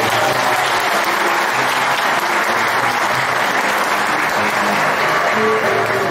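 Audience clapping, with music playing softly underneath; the clapping fades near the end as the music comes up.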